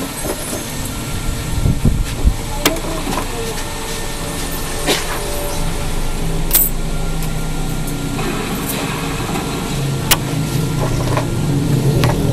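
Steady low rumble of a running motor-vehicle engine, growing louder near the end, with about four sharp clicks scattered through it.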